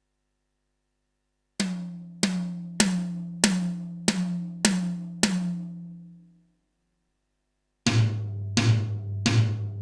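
Drum samples from a Roland TD-12 electronic drum module, triggered by single hits on a mesh pad. First come seven evenly spaced strikes, each ringing with a pitched tone. After a short pause, a lower-pitched sample is struck at a similar pace. Each hit triggers cleanly, and the pad shows no fault.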